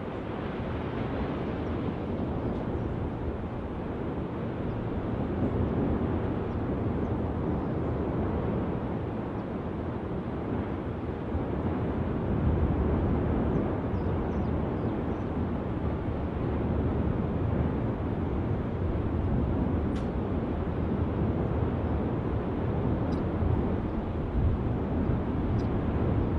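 Erupting volcanic fissure giving off a steady low roar, swelling and easing slightly in loudness.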